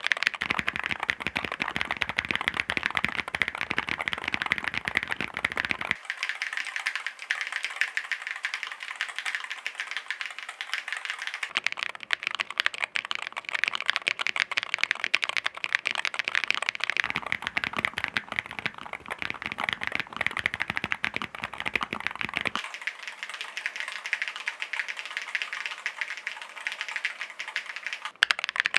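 Chilkey ND75LP mechanical keyboard being typed on fast and continuously, a dense stream of key clacks. The tone of the clacks shifts every five or six seconds, with the deeper part of the sound dropping out and coming back.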